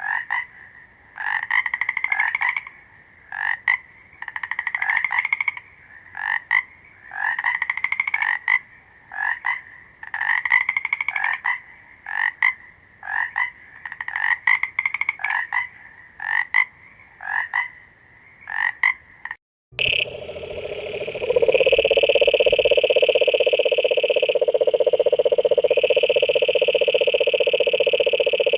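Frogs croaking: short sharp notes alternating with longer rising croaks, repeated about every second. About two-thirds of the way through the sound cuts off briefly and is replaced by a loud, continuous trill that rises at its start and then holds steady.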